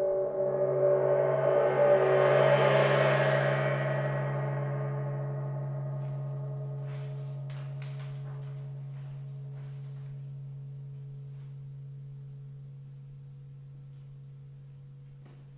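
Suspended gong swelling up under the mallet to a peak about two to three seconds in, then ringing on and slowly dying away, its bright upper shimmer fading first while the low hum lingers.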